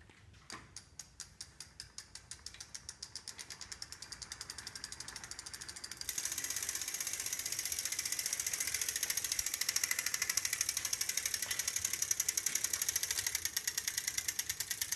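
SRAM i-Motion 3 three-speed internal gear hub clicking as the rear wheel spins. The ratchet-like clicks come faster and faster until they run together, and about six seconds in they get suddenly louder. This clicking is the one complaint the owner has about the hub.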